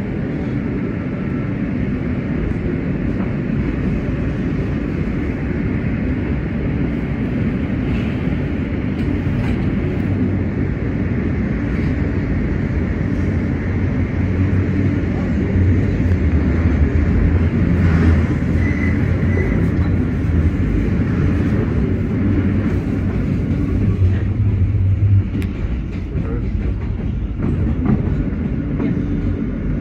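New York City subway train (MTA M train) running on elevated track, heard from inside the car: a steady low rumble of wheels and motors that grows louder a little past halfway, with a few sharp clicks and a brief high-pitched double tone.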